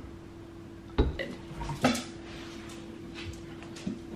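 A wooden spoon stirring and knocking against a ceramic mug, with two sharper knocks about one and two seconds in and a few lighter clicks.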